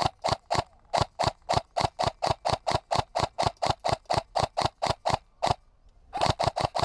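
Airsoft rifle firing a long string of rapid single shots, about five a second, as suppressing fire. It stops about five and a half seconds in, then fires four more quick shots near the end.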